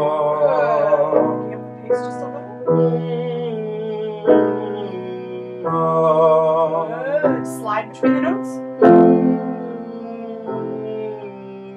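A tenor singing a vocal warm-up, humming and opening to an "ah" vowel, over piano chords struck about every three seconds, one chord for each repetition of the exercise.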